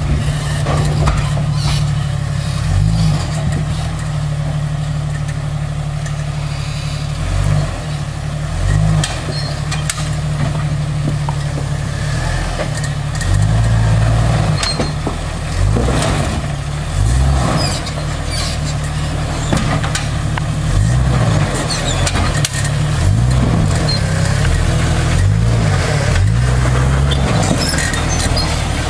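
1998 Jeep Wrangler's engine revving up and dropping back in repeated bursts as it is driven off-road, with scattered knocks and scrapes over the steady engine rumble.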